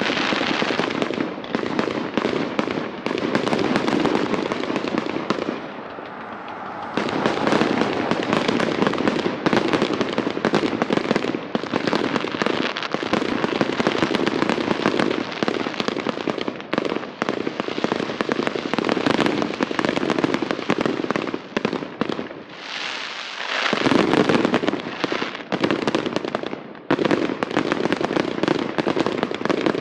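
Fireworks display: aerial shells bursting in a dense, nearly unbroken run of rapid bangs and crackles, easing briefly twice, about six seconds in and again a little past twenty-two seconds.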